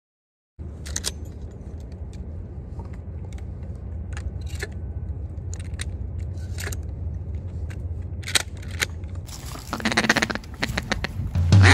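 Sharp metallic clicks and clinks of shotgun shells being loaded into two shotguns by hand, over a steady low rumble. Near the end, a denser rough crunching of footsteps on gravel and dry leaves.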